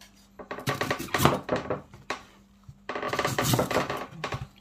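Kitchen knife shaving and cutting into the soft white husk of a trimmed young coconut on a cutting board. The cutting comes in two runs of quick strokes, one near the start and one about three seconds in.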